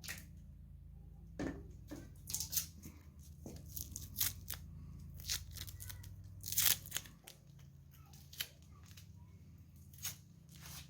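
Masking tape being pulled off the roll and torn, a string of short, irregular rips, with the loudest and longest about two-thirds of the way through.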